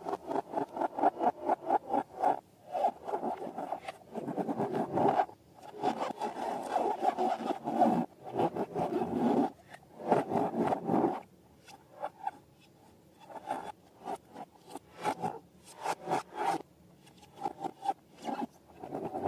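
Slime being squished and worked by hand, making sticky, crackling trains of rapid little clicks in bursts of a second or two with short pauses between.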